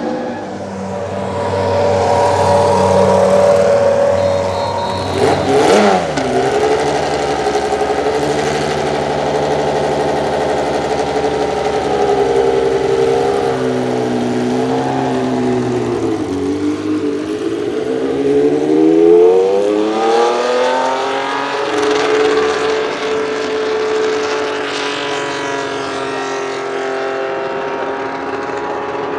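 Ferrari 312B's 3-litre flat-12 racing engine running at a high idle, blipped sharply once about six seconds in. Past the middle the revs climb steadily for about three seconds as the car pulls away, then hold level.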